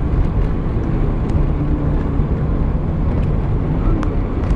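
Steady low rumble of a moving vehicle, road and wind noise, with wind buffeting the microphone.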